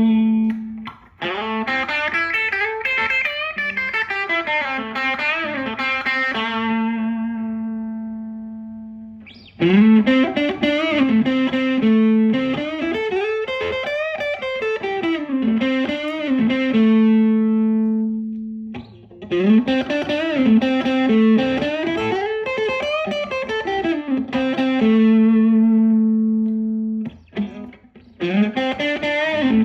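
Fender Stratocaster electric guitar through a mild overdrive pedal, playing the same short single-note lead phrase three times over. Each phrase ends on a long held note that rings out and fades before the next one starts.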